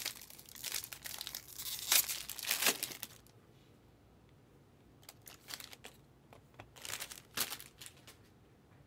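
Plastic wrapper crinkling and tearing for about three seconds as it is handled and pulled open. Then a few separate light clicks and taps.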